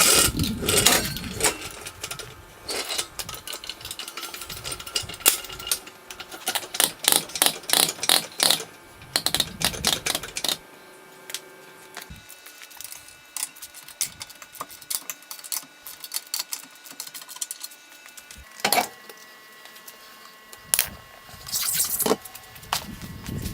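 Irregular metallic clicks and clinks of hand tools and parts being handled, coming in clusters with quiet gaps between.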